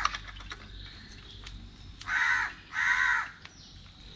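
A crow cawing twice, about two seconds in and again a second later. A few light clicks just at the start.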